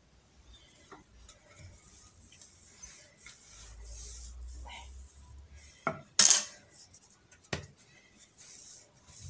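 Wooden rolling pin rolling shortcrust tart dough out thin on a floured granite countertop, a low rumble of the pin going back and forth. About six seconds in there is a short, loud clatter, and a sharp knock follows a second and a half later.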